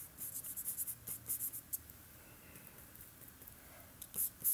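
Small paintbrush scrubbing and dabbing paint onto a textured painting surface: quick scratchy strokes for the first couple of seconds, a quieter pause, then a few more strokes near the end.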